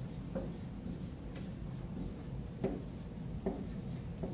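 Dry-erase marker writing on a whiteboard: a run of short strokes with a few light ticks of the tip.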